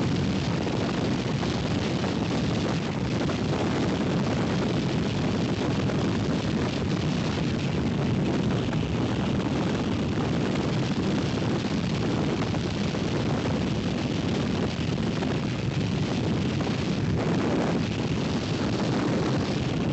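Freefall wind rushing over the microphone of a camera falling with a tandem skydive: a steady, unbroken rush of noise that holds the same level throughout.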